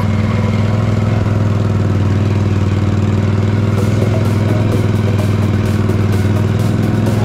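Can-Am Renegade 1000R's V-twin engine running steadily at a cruising pace on a gravel trail, with light ticking of gravel under the tyres from about four seconds in.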